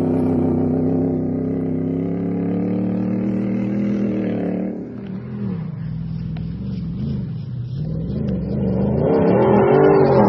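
Ford Raptor pickup engine held at a steady high rev as the truck accelerates away over sand. It cuts off suddenly about five seconds in. Another Raptor then approaches along a dirt track, its engine rising and falling in pitch as it revs and growing louder near the end.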